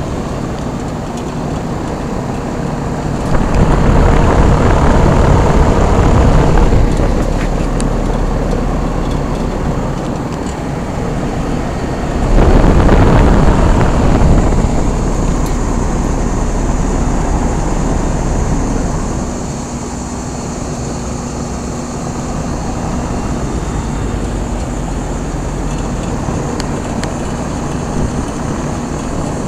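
Two 1995 Rheem Classic 5-ton straight-cool condensing units running: a steady compressor hum under the rush of the condenser fans. A louder rushing rumble swells about three seconds in and again about twelve seconds in, each lasting a few seconds.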